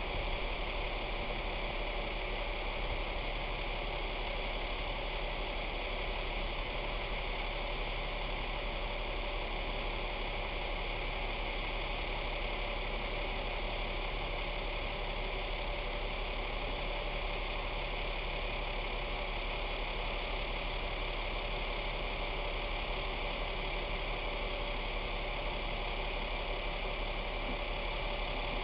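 Utility truck's engine idling steadily: a constant low hum with a hiss over it that does not change.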